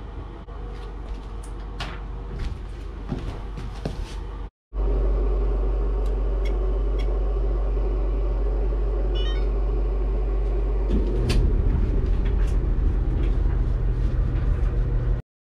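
Steady low mechanical hum with scattered light clicks and knocks. It cuts out briefly about four and a half seconds in, comes back louder, and stops suddenly near the end.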